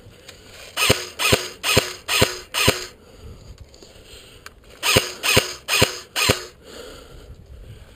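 Airsoft replica firing single shots: five sharp cracks about half a second apart, then after a two-second pause four more.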